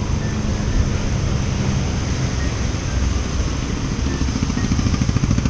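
Motor scooter engine running on the move under a broad rush of wind and road noise; about four seconds in, the engine sound turns to a fast, even pulsing.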